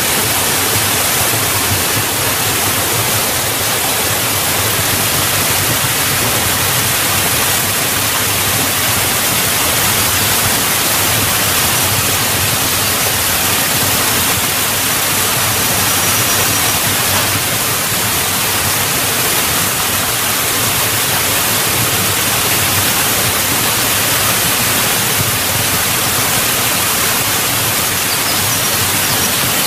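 Small mountain waterfall: a steady rushing of water spilling down a rock channel into a pool.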